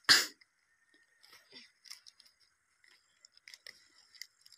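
Leafy mustard-green stalks snapping and leaves crackling as they are picked by hand: one loud sharp crunch right at the start, then scattered small snaps and rustles.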